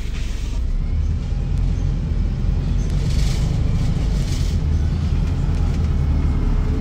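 Interior of a Volvo B5TL double-deck bus on the move: the diesel engine and road noise make a steady low rumble, with a brief hiss about halfway through.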